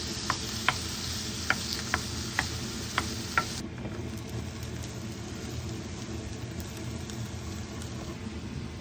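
Food sizzling in a pan, with about seven sharp taps of a utensil against it; a little past three seconds the sizzle cuts off abruptly, leaving a low steady hum.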